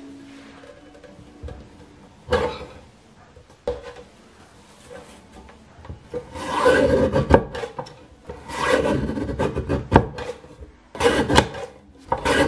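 Guillotine paper cutter slicing through sheets of printed card. There are two short knocks early, then four loud rasping cuts in the second half as the blade arm is brought down through the stack.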